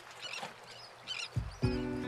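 Small birds chirping in short calls as the sound fades in, then music begins about one and a half seconds in with low thuds and sustained chords.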